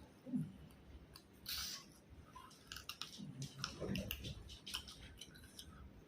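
A person chewing food close to the microphone, with scattered mouth clicks and smacks.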